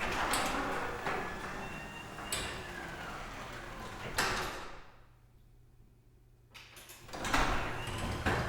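Sectional garage door rattling and rumbling as its panels travel along the tracks, stopping with a knock about four seconds in. After a short lull, it clunks and starts moving again near the end.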